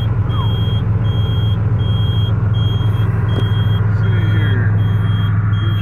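Older Detroit diesel engine in a semi truck idling steadily, heard from inside the cab, with a dash warning beeper pulsing evenly about once a second over it: the low-air warning, the air system not yet up to pressure.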